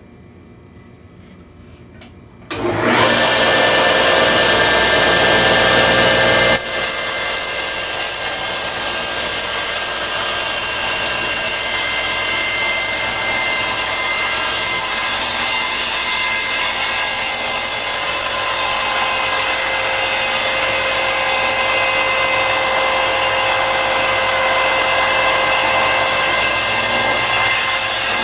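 Table saw switched on about two and a half seconds in and running at speed. From about six seconds in, the blade cuts slowly up into the dado jig's carrier with a steady sawing sound, making the jig's initial kerf cut.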